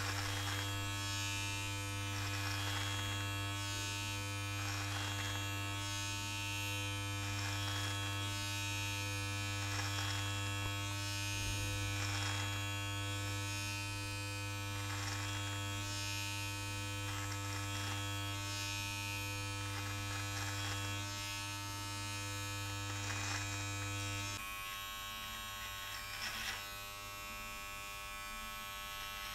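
Electric body-hair trimmer buzzing steadily as it is run up through a beard, with a brief rasp of hair being cut on each pass, roughly every second or two. About twenty-four seconds in, the buzz turns a little quieter and changes tone.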